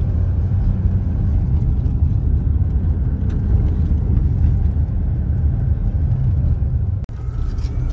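Car driving on a dirt road, heard from inside the cabin: a steady low rumble of tyres, engine and wind, with a few faint knocks from the rough surface. The sound drops out for an instant about seven seconds in.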